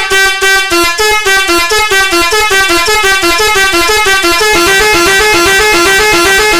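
Seger 86EH 12-volt melodic air horn ("Arab horn") sounding continuously, rapidly alternating between two notes in a warbling two-tone melody.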